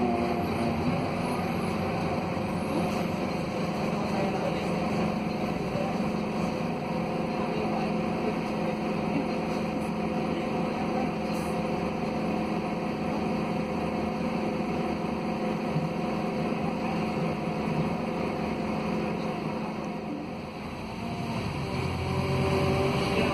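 Five-cylinder Scania DC09 Euro 6 diesel engine of a Scania K280UB city bus pulling steadily under load on a hill climb, heard from inside the passenger cabin along with road noise. Near the end the sound dips briefly, then the engine note rises again.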